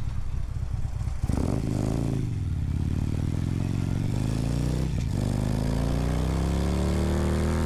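Harley-Davidson V-twin motorcycle engine accelerating: its pitch climbs, drops briefly at a gear change about five seconds in, then climbs again.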